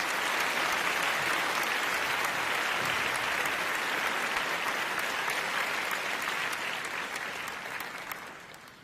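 An audience applauding: steady, dense clapping that fades out near the end.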